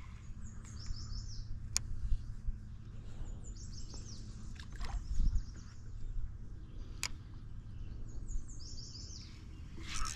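Songbirds singing in short, high phrases of falling notes every few seconds, over a steady low rumble. Two sharp clicks come a few seconds apart.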